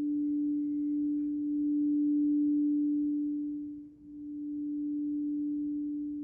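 Crystal singing bowl ringing with one steady low tone and a fainter higher tone that fades away; the sound swells and ebbs, dipping briefly about four seconds in before swelling again.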